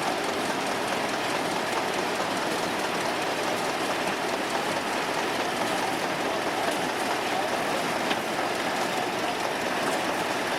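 A long row of old hay balers running together: a steady, dense mechanical noise that holds even throughout.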